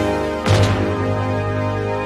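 The show's closing theme music: held keyboard and organ-like chords, with a loud accent about half a second in.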